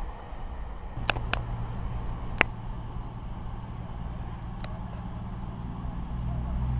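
CrossCountry Voyager diesel multiple unit approaching, its underfloor diesel engines a low drone that grows louder near the end. A few sharp clicks are also heard.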